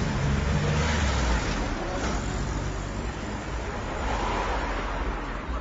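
Small-town street traffic: a car's engine rumble and tyre noise swell as it passes about a second in, with another vehicle passing around four seconds in.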